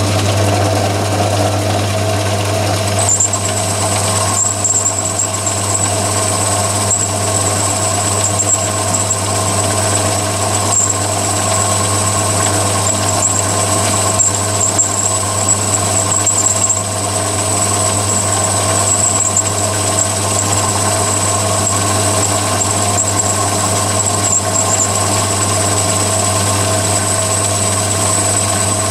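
Myford ML7 lathe running at about 500 rpm with a 50 mm boring head cutting a 20 thou pass through a bore in a steel block: a steady motor and spindle hum with a few held tones. A high steady whine joins about three seconds in and holds as the cut goes on.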